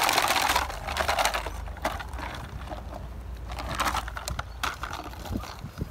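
Crackly rustling of a rag tug toy as it is shaken and snapped at by Malinois puppies, loudest in the first second and a half. After that come scattered light clicks and short rustles as the puppies bite and tug at it.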